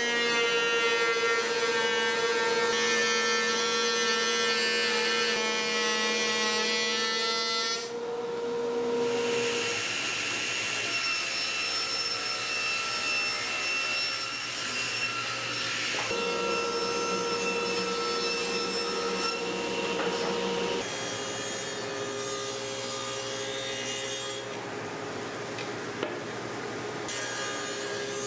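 Power tools cutting walnut: a router table and then a table saw running and cutting. The steady motor whine shifts abruptly to a new pitch several times, about 8, 10, 16 and 21 seconds in.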